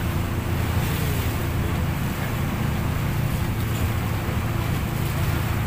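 Speedboat engine running steadily under way, a low even drone, with wind and water hiss on the microphone.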